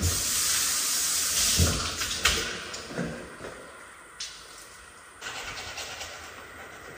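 Water from a sensor tap rushing into a ceramic washbasin, with a few splashes. It fades out after a few seconds and comes back fainter about five seconds in: the tap's flow keeps stopping and starting.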